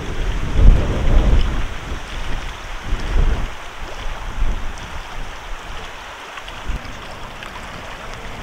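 Wind buffeting the microphone in heavy low gusts over the first few seconds, then easing, over a steady hiss.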